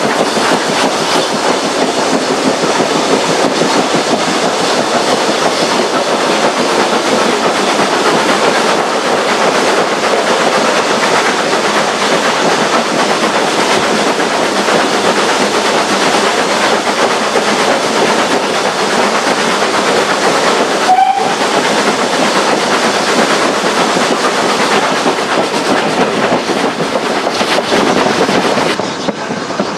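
Steam-hauled train running through a tunnel, heard from inside a carriage: a loud, steady rush of wheel, exhaust and smoke noise closed in by the tunnel walls, with one brief high note about two-thirds of the way through. The din drops near the end as the train leaves the tunnel.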